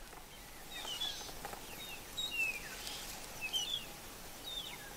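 Birds calling, several short falling whistled notes every second or so, over a faint steady hiss of bush ambience.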